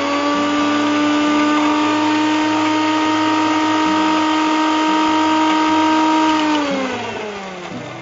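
Electric mixer grinder (mixie) running at full speed with a steady whine, grinding red chillies, ginger and salt. It is switched off about six and a half seconds in and winds down, the whine falling in pitch as it fades.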